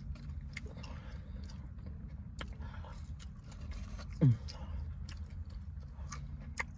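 Mouth sounds of chewing fries, with faint clicks and crinkles, over a steady low hum in the car cabin. About four seconds in, a short vocal 'mm' falling in pitch is the loudest sound.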